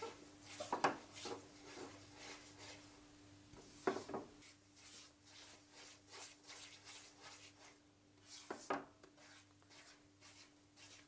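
Metal spatula stirring and scraping a thick gram-flour and semolina paste around a nonstick wok in repeated strokes, with three louder knocks against the pan. A faint steady hum sits underneath.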